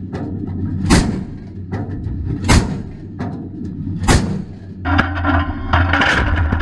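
A warship's deck gun firing three single shots about a second and a half apart, each a sharp boom. From about five seconds in a steadier sound with held tones takes over, with one more blast near the end.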